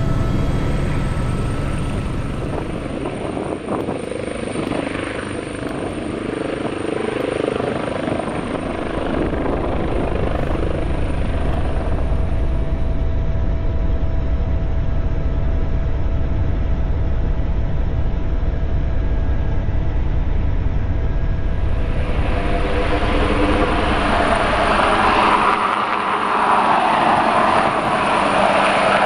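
Helicopter turbine and rotor heard from inside the cockpit, a steady low drone with a thin turbine whine. About 22 seconds in it changes to the outside sound of an AgustaWestland AW139 flying past: brighter rotor and twin-turbine noise with a high whine.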